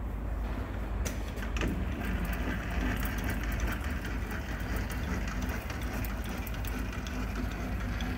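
Steady low machine-shop hum, with a few light metallic clicks about a second in as a dial indicator on its articulated holder arm is positioned.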